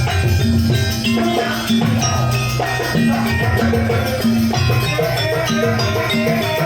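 Jaranan gamelan music playing steadily: a rhythmic drum beat under short, stepping pitched notes from metal percussion, with a wavering held melody line above.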